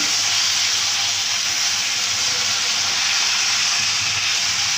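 Chicken pieces frying with chopped onions in hot oil, a steady sizzle.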